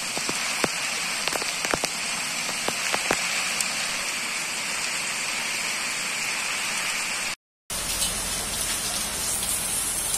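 Heavy rain pouring onto a cobblestone street, a steady hiss with a few sharp ticks in the first three seconds. The sound drops out for a moment about seven seconds in, then the downpour carries on with a deeper rumble underneath.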